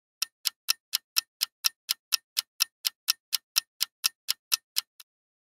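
Clock-ticking sound effect for a quiz countdown timer: a run of about twenty sharp, evenly spaced ticks, roughly four a second, stopping about five seconds in.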